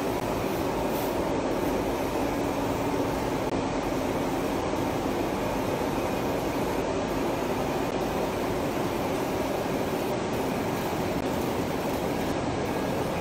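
Conveyor belts and sorting machinery running together in a steady mechanical drone, with faint steady hums through it.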